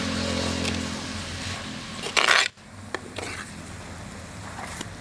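A metal spoon clinking and scraping against a cooking pot while spices are mixed in. A loud, short rush of noise just past two seconds cuts off abruptly, with a few sharp clinks after it.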